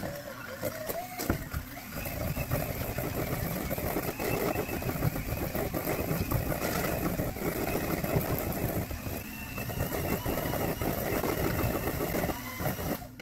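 Electric kitchen mixer running at a steady speed, beating sugar cookie dough in a bowl with a whine and rattle, then switching off near the end.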